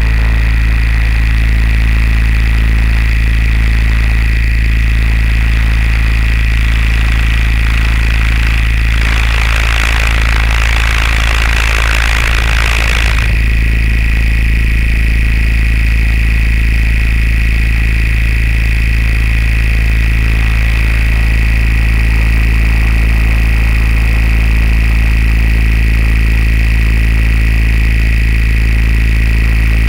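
Motor of a flying aircraft running steadily at a constant pitch, heavy in the low end. A rushing noise rises over it for about four seconds around ten seconds in.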